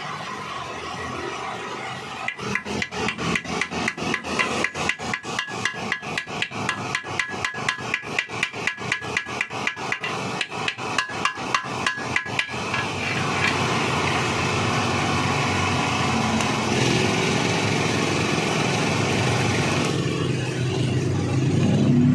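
Hand-tool work on the metal of a concrete-mixer drum shaft: a run of quick, even scraping strokes, about four to five a second, lasting about ten seconds, then a steady hiss.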